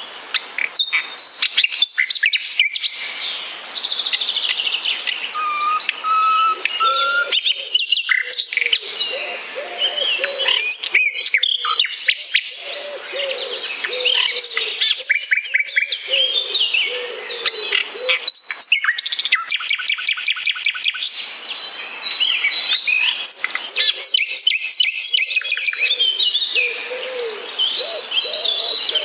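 Several birds singing and chirping at once: a dense mix of quick high chirps, rapid trills and whistled notes, with lower wavering notes running beneath them for much of the time.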